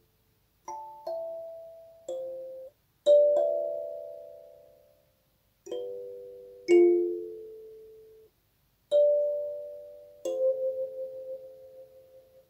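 Capsule kalimba: steel tines plucked by the thumbs, a few notes at a time. About nine plucked chords ring out and die away with short silences between them, and the last one wavers as it fades.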